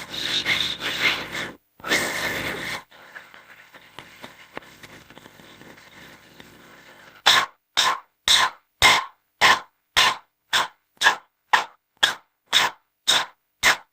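Creature sound effects for an orca–shark hybrid: a harsh, rasping call, a second shorter one, then after a quiet stretch a steady run of short, breathy pulses about two a second.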